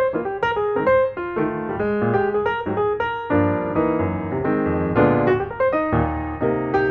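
Background music: piano playing a flowing melody of quick successive notes over sustained chords.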